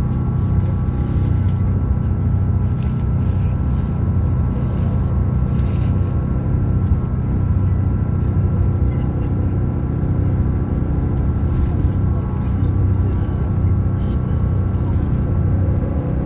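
Steady engine and road rumble inside the cabin of a moving vehicle at road speed, unchanging throughout.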